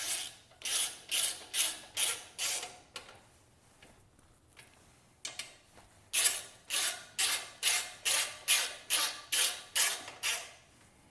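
Socket ratchet wrench clicking through short back-and-forth strokes as bolts are tightened down, about two strokes a second. There are two runs of strokes with a pause of a few seconds between them.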